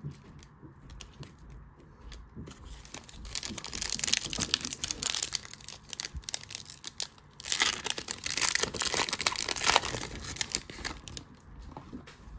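A Donruss football card pack's plastic wrapper being crinkled and torn open by hand, a dense crackling that builds about three seconds in and is loudest from about seven and a half to ten seconds in.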